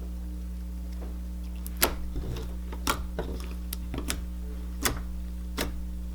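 Slime being stretched and folded by hand, giving a series of sharp pops and clicks about one a second from about two seconds in, over a steady low electrical hum.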